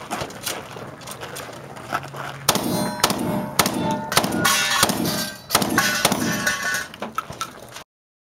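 A string of about eight rapid shots from a competition shotgun over roughly four and a half seconds, mixed with the clang of steel targets being hit. The audio cuts out abruptly near the end.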